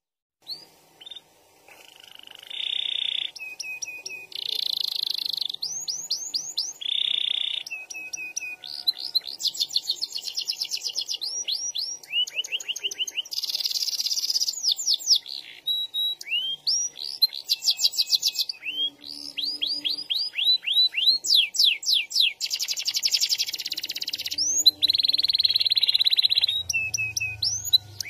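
Domestic canary singing a long, varied song, starting about a second in: fast rolling trills alternate with runs of quick rising whistled notes, with hardly a pause.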